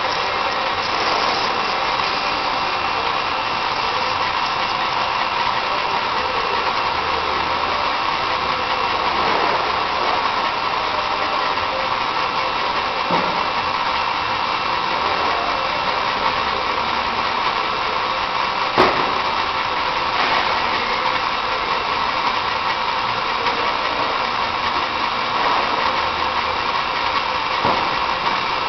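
A roller-driven machine running steadily with a constant mechanical hum, with one sharp click about two-thirds of the way through.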